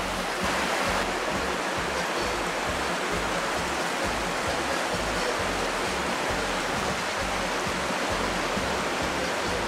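Steady rush of a fast-flowing river. A faint music bass line runs underneath.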